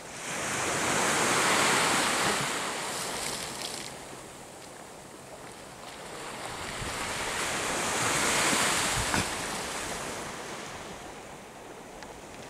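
Small sea waves breaking and washing up the shore in two surges, the first swelling about a second in and the second around eight seconds in, each ebbing away slowly afterwards.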